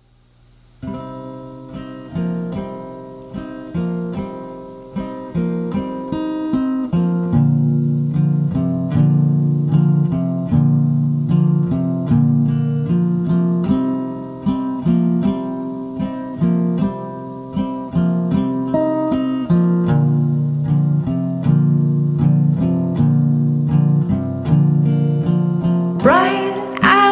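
Acoustic guitar picking a repeating pattern of plucked notes, starting about a second in. A woman's voice begins singing near the end.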